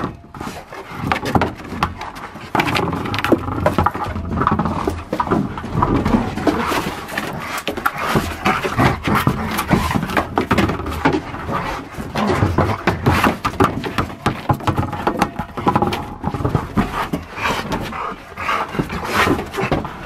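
Dog playing with a noise-making orange toy ball, mouthing it and pushing it around on wooden deck boards, with panting and a continuous, irregular run of knocks and rubbing.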